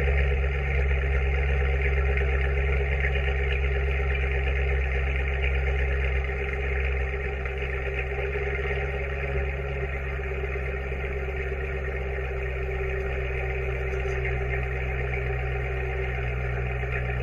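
Supercharged Corvette C7's 6.2-litre V8 idling steadily, heard close to the rear exhaust tips.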